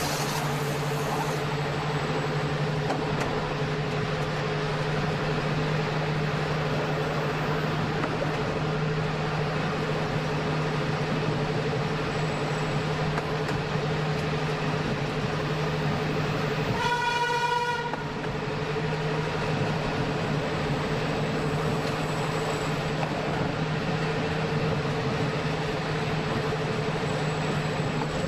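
Electric train running along the rails, a steady rolling noise with a constant hum. About two-thirds of the way through, the train's horn gives one short, high blast of about a second.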